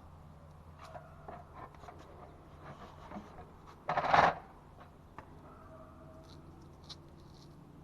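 Work handling noises: scattered small clicks and rustles, with one short, loud scraping rustle about four seconds in, over a low steady hum.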